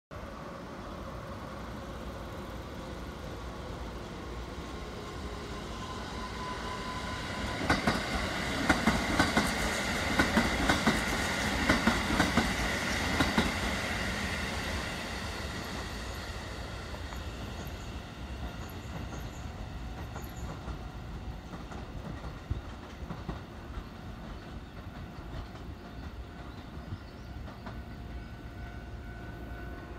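Keikyu 1000 series stainless-steel four-car electric train running past, its wheels clacking over rail joints. The clatter is loudest about eight to thirteen seconds in, a run of sharp clacks, then fades as the train moves away.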